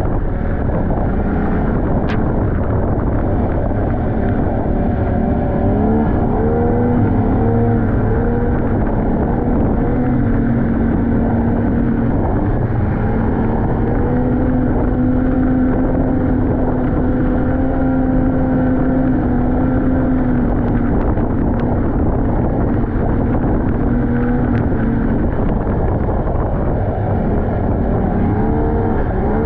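Snowmobile engine running under way, its pitch rising and dipping with the throttle several times and holding steady for several seconds in the middle, over a steady rushing noise on the microphone.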